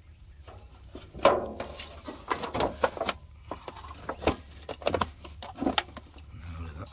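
Disposable aluminium foil tray crinkling and clattering while a marinated half goat is pressed into it by hand, mixed with wet slaps of the meat. Irregular knocks and crackles, the loudest just after a second in.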